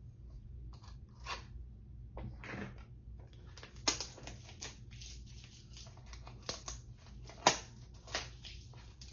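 Cosmetics packaging being opened and handled by hand: irregular crinkling, tearing and crackling, with a few sharp snaps about four and seven and a half seconds in.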